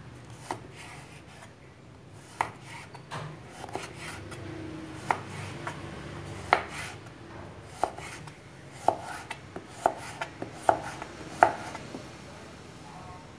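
Kitchen knife slicing a carrot into thin strips on a wooden cutting board: a sharp knock each time the blade meets the board, at an uneven pace, coming more often and louder in the second half.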